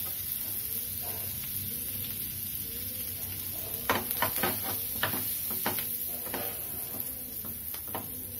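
Butter sizzling in a flat pan as halved pav buns are pressed into it to toast, with a run of sharp clicks and crackles about four to six seconds in.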